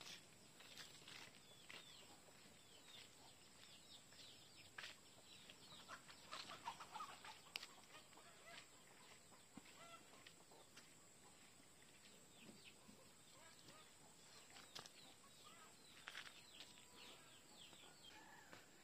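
Faint rural outdoor ambience: birds chirping in many short falling chirps, with a burst of clucking about six to seven seconds in and a steady high-pitched tone underneath.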